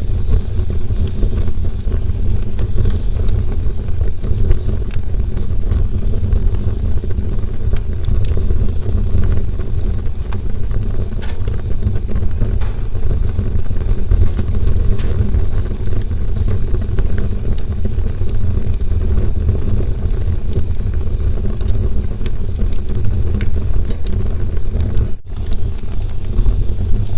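Campfire burning: a steady low roar of the flames with scattered crackles and pops of burning wood. The sound drops out for an instant near the end.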